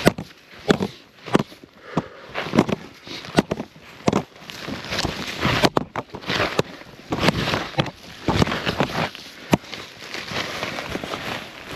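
Snowshoes crunching through deep snow in a steady walking rhythm, a crunchy step about every two-thirds of a second.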